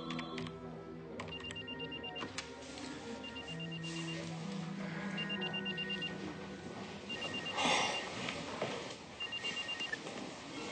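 Smartphone ringtone: five bursts of rapid, short, high beeps, repeating about every two seconds, over soft background music.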